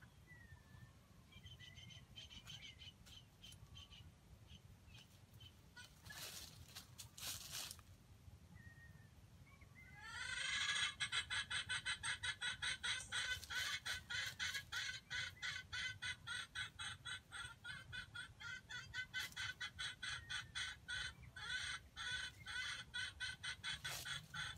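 Chicken clucking in a long, rapid, continuous run of pulsed calls, about four or five a second, starting about ten seconds in. Before that, faint chirps and a brief rustle.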